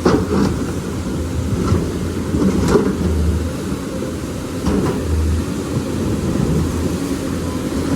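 Lonking excavator's diesel engine running steadily with a low rumble, with several short sharp knocks scattered through, mostly in the first three seconds.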